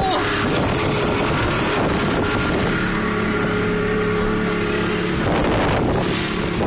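Shetland 498 motorboat under way at speed in choppy water: a steady rush of wind and water over the microphone, with the engine's hum showing through for a few seconds in the middle.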